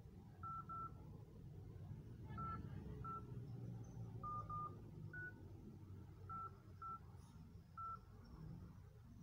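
Phone keypad dialing tones as a number is typed in: about ten short beeps at an uneven pace, some in quick pairs.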